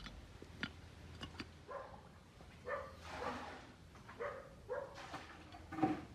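A dog giving a series of short yelps, with a few light clicks before them.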